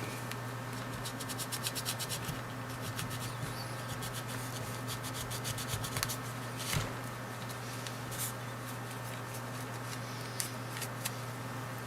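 Rubbing and scrubbing on a small key fob part as it is wiped clean, a run of quick light strokes, with a couple of sharper clicks about seven and eight seconds in.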